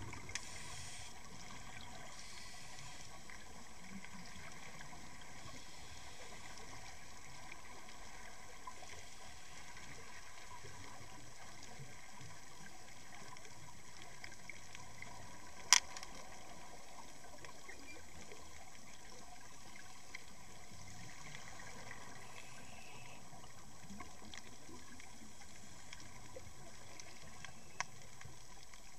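Steady underwater rush of water streaming past a camera housing mounted on a swimming lemon shark, with one sharp click about halfway through.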